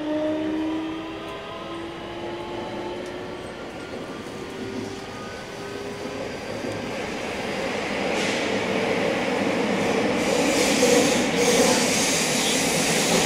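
Onboard running sound of a JR West 321 series electric train: the motor whine of its Hitachi IGBT VVVF inverter rises slowly in pitch and fades out about halfway through. After that, the rumble of the wheels and running noise grows steadily louder.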